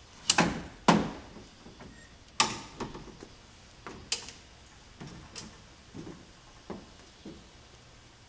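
Ford F-150 tailgate step in use: a run of sharp metal clicks and clacks as the folding step and the telescoping grab handle are pulled out and lock into place. Several duller thumps near the end are shoes stepping onto the step and the tailgate.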